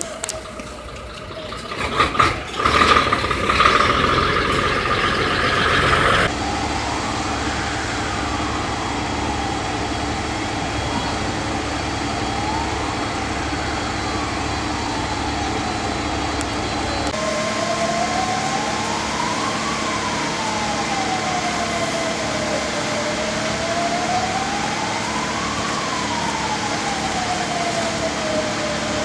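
A siren wailing slowly up and down, about one rise and fall every six seconds, over a steady mechanical hum. It starts about six seconds in, after a few seconds of knocks and rushing noise.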